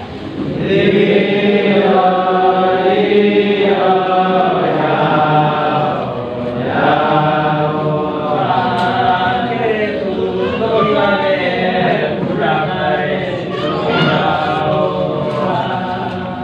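A group of young men singing a Christian praise song in the Nduga language, unaccompanied and in several voices, with the singing swelling up about half a second in.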